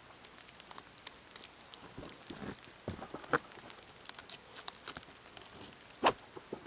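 Gear being handled and packed into a canvas backpack: fabric rustling and scattered small clicks and knocks, with the loudest sharp knock about six seconds in.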